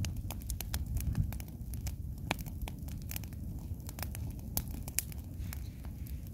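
Campfire crackling, with many irregular sharp pops and snaps over a low steady rumble, as sausage and salo fry over it.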